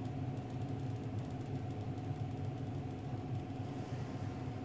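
A steady low mechanical hum with no distinct clicks or other events.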